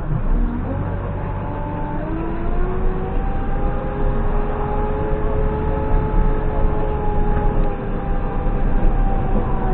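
JCB 3CX backhoe loader's diesel engine running. Its pitch dips at the start, climbs over the next couple of seconds as the revs come up, then holds steady.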